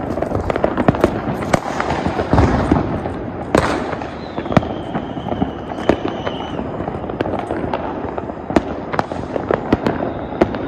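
Firecrackers going off in a dense, irregular series of sharp bangs and crackles, with a thin whistle that falls slightly in pitch for about two seconds near the middle.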